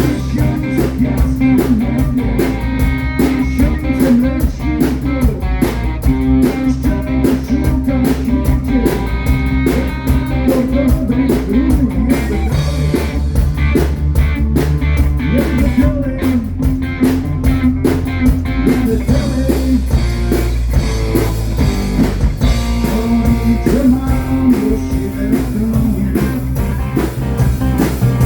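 Live rock-blues band playing, with guitar, bass and drum kit. A fast run of cymbal strokes drops out about two-thirds of the way through, leaving guitar and bass more to the fore.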